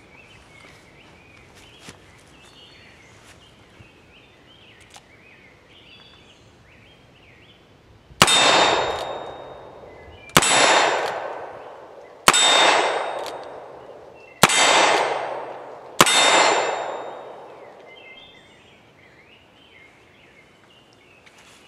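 Five shots from a Colt Bisley single-action revolver in .38 Special, about two seconds apart, each hitting a steel reactive target that rings on for about two seconds afterwards.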